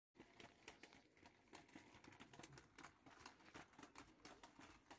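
Near silence: faint room tone with many soft, irregular clicks.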